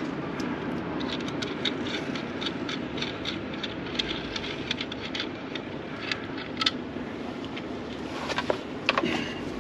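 Scattered small clicks, taps and scrapes of hand tools and metal hardware being worked on battery cable connections, with a few louder clicks near the end, over a steady low background rumble.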